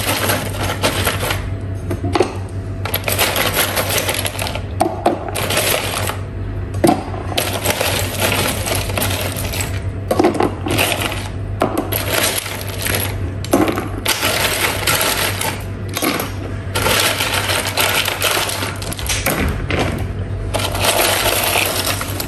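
Ice cubes clattering and clinking against each other and a plastic container as a hand rummages through them, in repeated irregular bursts of rattling with short pauses.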